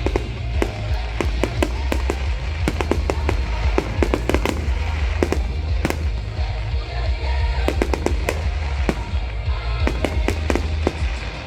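Fireworks display: a dense run of sharp bangs and crackles, coming in quick clusters, with music playing underneath.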